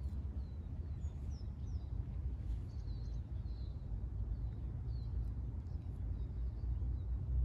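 Steady low wind rumble on the microphone, with a few faint bird chirps scattered through it.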